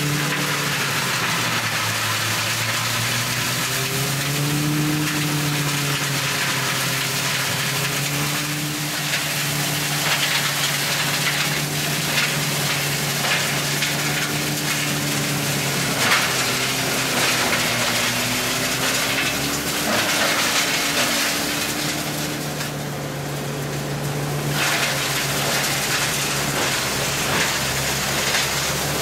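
Tractor engine running under load as it drives a tractor-mounted branch shredder with a side feeder, chewing through pruned lemon-tree branches: a steady crackling and snapping of wood over the engine hum, with the engine pitch dipping and recovering as the feed comes in. The crackling eases for a couple of seconds a little after twenty seconds in while the engine keeps running.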